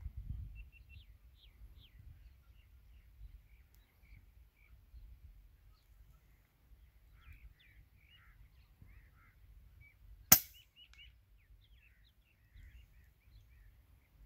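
A single shot from a scoped PCP air rifle: one sharp crack about ten seconds in, over faint small-bird chirping.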